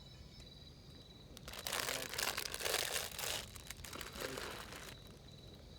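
Crinkling, rustling handling noise for about three and a half seconds, starting about a second and a half in, over a steady insect chirping.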